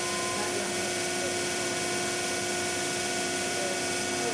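ShopBot PRSalpha CNC router's spindle running at 18,000 RPM while routing around a small plywood cabinet panel: a steady whine of several even tones over a constant hiss.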